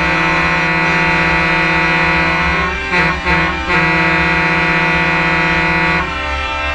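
Truck air horns blowing a loud, sustained multi-tone chord, broken briefly about three seconds in and then held again until the sound changes to fewer, lower tones about six seconds in, over a low engine rumble.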